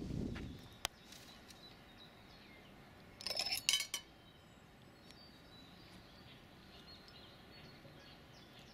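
A short burst of glass clinking and knocking about three seconds in, after a single sharp click about a second in, over a faint outdoor background.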